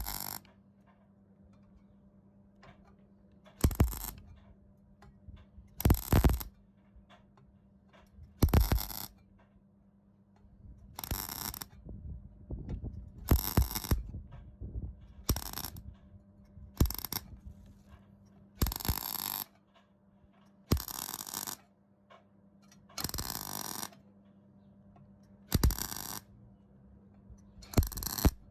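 MIG welder laying down a series of short stitch or tack welds: about a dozen separate bursts of arc crackle, each under a second long, with pauses between them. A steady low hum sits underneath.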